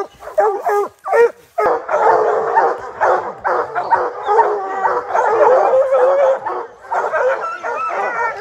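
Hunting hounds baying: first a few separate bawls, then from about two seconds in a steady din of several hounds baying at once.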